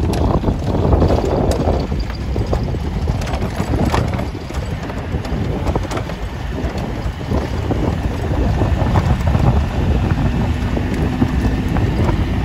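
Safari vehicle driving over a rough gravel road: a steady low rumble of engine and tyres, with scattered knocks and rattles from the stones, and wind buffeting the microphone.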